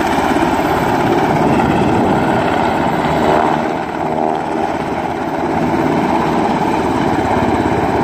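Helicopter hovering low overhead: a loud, steady din of rotor and turbine with a rapid chop from the blades. The uploader takes it for a military aircraft.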